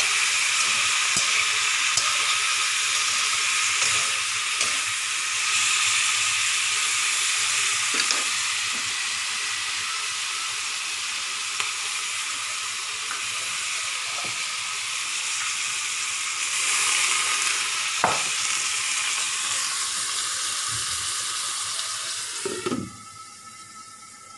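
Squash and string beans sizzling in a wok, a steady hiss with a few light knocks of stirring, until the sizzle stops abruptly near the end.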